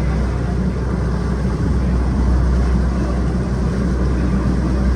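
Ferry's engine running with a steady low drone.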